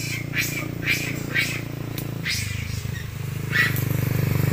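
Monkeys (long-tailed macaques) giving a series of short, high-pitched calls over a vehicle engine running steadily. The engine grows louder from about halfway through.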